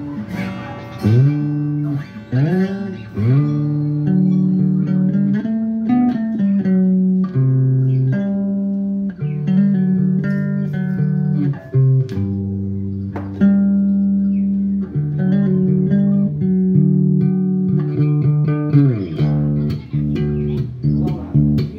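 Black J-Craft five-string Jazz Bass played solo: a melodic line of plucked single notes that ring on, with several upward slides in the first few seconds and a long slide down near the end.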